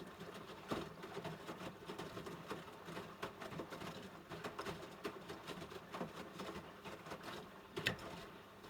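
AEG LS60840L front-loading washing machine's drum turning a wet load during its wash programme: an irregular patter and sloshing of clothes and water, with a couple of sharper knocks.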